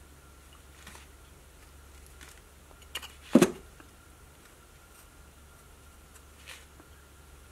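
Carving knife cutting small slivers from a basswood figure, a few faint short scrapes, with one sharp knock about three and a half seconds in.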